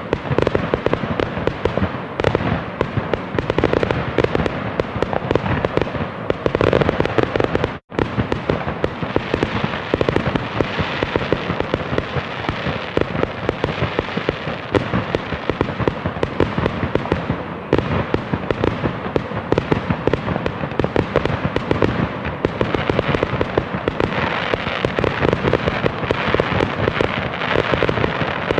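Fireworks going off densely: a continuous run of rapid bangs and crackling with no lull, cut by a split-second gap of silence about eight seconds in.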